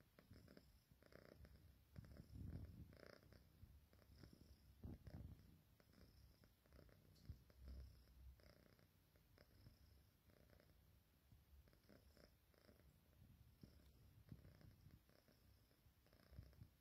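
A long-haired cat purring faintly, a low rumble that swells and fades every second or two.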